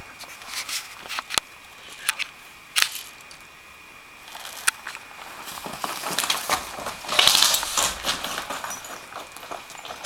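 Footsteps crunching over dry leaves and rubble, loudest about three quarters of the way in, after a few separate sharp clicks in the first half.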